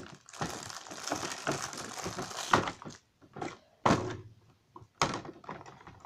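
Crinkly plastic wrapping of a minifigure package crackling as it is handled, then a few separate sharp clicks and knocks in the second half.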